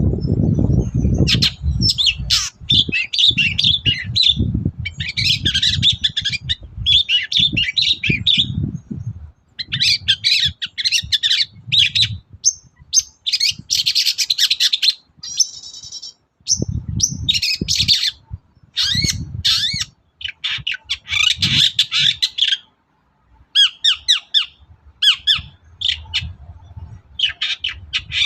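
Long-tailed shrike (cendet) singing in rapid, chattering phrases of a second or two, broken by short pauses. A low rumble runs under parts of the song.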